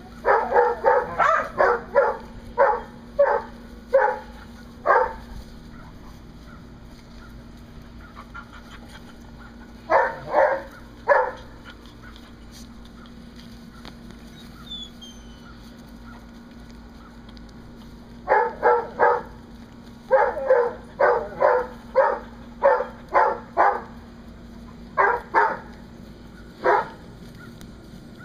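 Seven-week-old Chihuahua–miniature pinscher mix puppies yapping in play: short, high barks in quick runs of about two a second, broken by pauses of several seconds.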